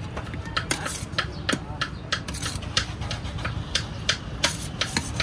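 Steel ladle stirring chicken curry in a steel serving tray, scraping and clinking against the metal in a run of sharp, irregular clicks over a steady low rumble.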